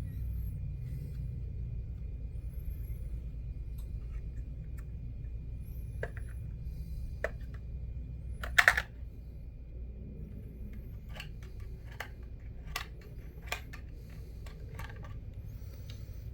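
Scattered small clicks and taps of small objects being handled, with one louder click about nine seconds in, over a steady low hum.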